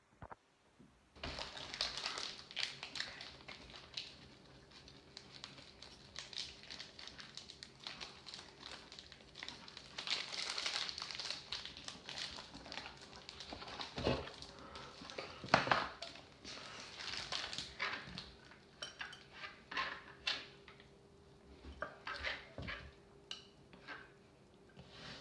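Kitchen clatter: a spoon scraping and knocking in a mixing bowl and utensils handled on the counter, with many sharp clicks, over a faint steady hum.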